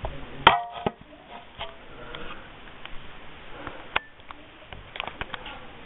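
A sharp clink about half a second in that rings briefly, a second click just after, then scattered light clicks and taps.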